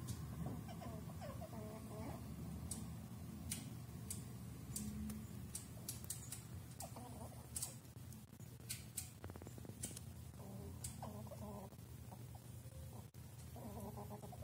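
Fox squirrels eating sunflower seeds: irregular sharp clicks of shells being cracked, with short bouts of low clucking calls now and then.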